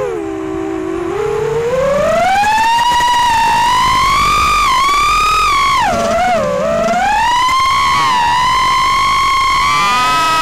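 FPV racing quadcopter's brushless motors whining in flight, the pitch following the throttle: low at first, climbing over the first two seconds, dipping sharply about six seconds in, then holding high and steady.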